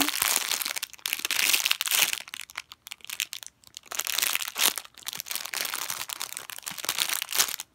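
Clear plastic bag crinkling as a bagged foam squishy toy is squeezed and turned over in the hands, in irregular crackly bursts with a few short pauses.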